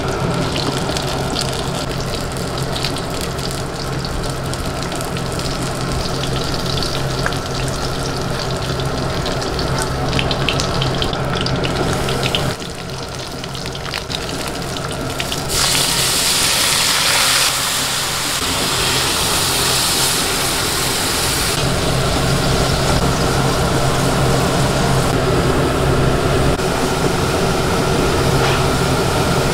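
Whole sunfish frying in oil in a wok, sizzling and spattering over a steady low hum. About halfway in, a louder hiss lasts a couple of seconds, and a steady bubbling simmer follows as the fish cooks in liquid.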